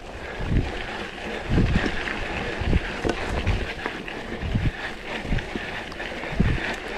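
Wind buffeting a camera microphone on a mountain bike ride, irregular low thumps about once a second over a steady rushing hiss.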